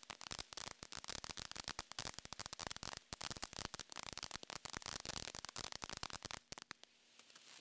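Ground fountain firework (TNT Jackpot) crackling with dense, rapid pops. The crackle dies away near the end, leaving a faint hiss.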